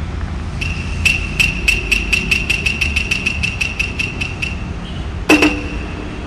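A bell ringing rapidly at one pitch, about six strikes a second for roughly four seconds, then one louder single strike about five seconds in.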